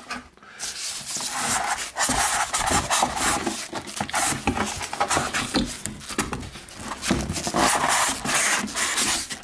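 Plastic wrapping bag crinkling and rustling as it is handled, with cardboard box flaps rubbing and scraping.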